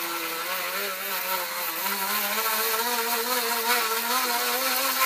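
Small electric motor-driven tool running at speed while pressed hard against a surface to burn through it by friction. It gives a steady hum with a hiss of rubbing, and the pitch wavers and sags slightly as it is loaded.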